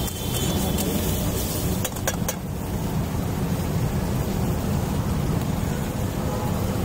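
Metal spatula clinking and scraping against a black iron pan of frying onions and tomatoes, a few sharp strokes in the first two seconds or so, then stopping. Under it runs a steady low rumble.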